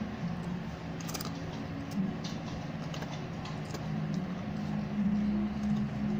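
Husky puppy chewing a barquillo wafer stick, giving scattered small crisp cracks, over a steady low hum.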